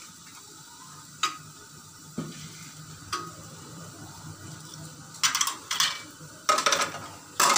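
Faint steady sizzle of masala cooking under the lid of an aluminium karahi on a gas flame, with a few light clicks. From about five seconds in, metal pans and utensils clatter in several short bursts.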